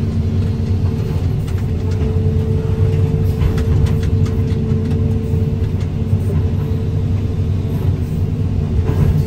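Excavator's diesel engine running steadily with a constant hydraulic whine, heard from inside the cab as the grapple swings and lowers. A few light metal clanks come in around the middle.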